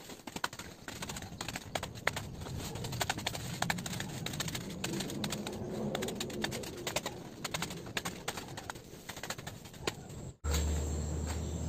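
Banana leaves rustling with many sharp crackles as they are pulled from the plant's trunk and handled. Near the end the sound cuts out for an instant, and a low steady hum takes over.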